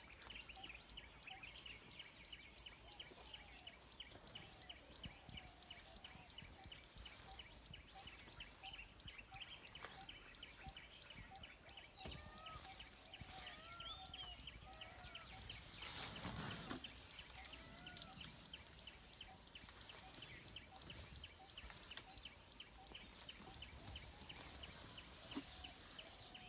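Faint scrub-forest ambience of wild birds calling: a high ticking call repeats several times a second throughout, with scattered short arching chirps over it. About sixteen seconds in comes a brief, louder rustling noise.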